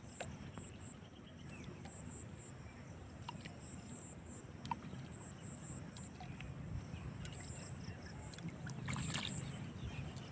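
Water sloshing with a few light clicks, under insects chirping in short, quick high pulses.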